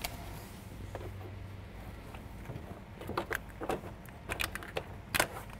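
Scattered small clicks and taps as a camper's power-cord plug is handled and connected to a socket under a pickup's rear bumper, the sharpest click about five seconds in, over a steady low hum.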